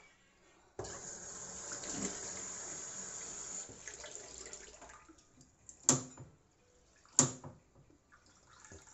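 Water running from a tap into a glass for about four seconds, starting abruptly a little under a second in and trailing off. Then two sharp knocks, about a second apart, which are the loudest sounds.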